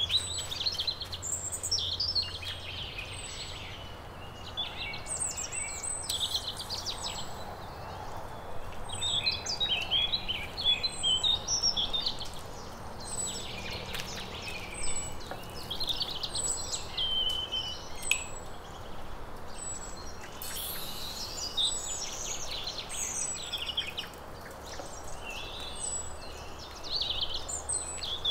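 Songbirds singing in short, repeated warbling and chirping phrases with brief pauses between them, over a faint low steady hum.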